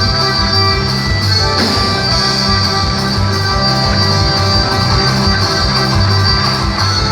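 Loud dance music for a quadrilha junina, with a steady beat and plucked strings.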